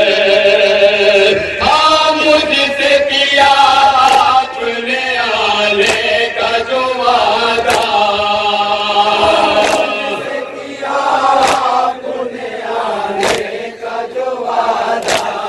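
A group of men chanting a Shia nauha (lament) over a microphone, a lead voice with the others singing along in held, wavering notes. Sharp slaps of chest-beating (matam) fall about every two seconds.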